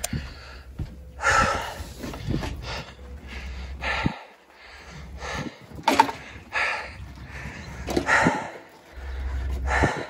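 People breathing hard, about seven loud heaving breaths a second or two apart: out of breath from lifting a heavy cast iron boiler block.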